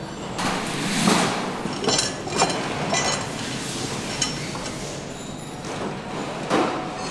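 Engine assembly workshop noise: a steady background with scattered metal clinks and knocks, several in the first three seconds and another sharp one near the end.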